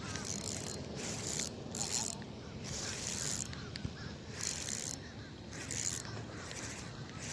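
Fishing reel being cranked in short turns, a high whirring that comes and goes about once a second, over low outdoor wind noise.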